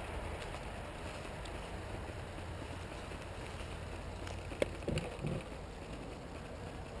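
Wind buffeting the microphone in a steady low rumble. About four and a half seconds in there is a sharp click, then two short soft thumps.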